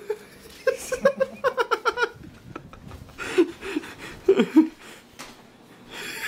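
A person laughing: a quick run of about eight 'ha' pulses about a second in, then two shorter chuckles a couple of seconds later.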